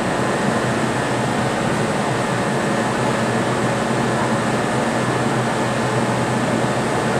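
Kintetsu 30000 series 'Vista EX' express train standing at the platform: its air-conditioning and under-floor equipment run with a steady fan-like noise, a low hum and a thin high whine.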